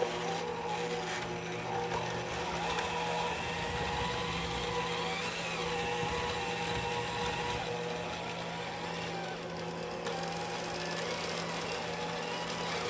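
Electric mixer running steadily, its motor whining as it whips ice cream into a thick blizzard. The pitch wavers slightly as the load on the beaters changes.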